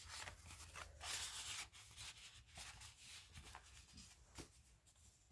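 Faint rustling and sliding of paper cards and a tag being handled and tucked back into a journal pocket, with a few soft paper taps.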